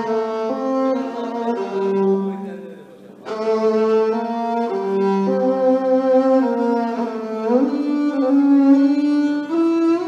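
Solo violin playing a slow melody of held notes. It breaks off briefly about three seconds in, and slides up in pitch about two-thirds of the way through.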